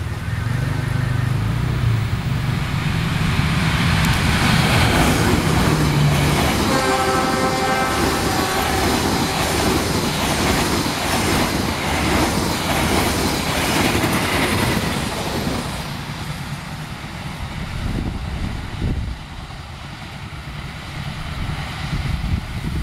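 CC206 diesel-electric locomotive hauling a passenger train: its engine hum approaches, and its horn sounds about seven seconds in. The coaches then pass close by, wheels clattering in a steady rhythm, and the sound fades as the train moves away.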